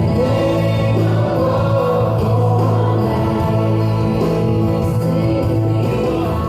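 Recorded hymn with a choir singing long held chords over an instrumental backing, played through loudspeakers.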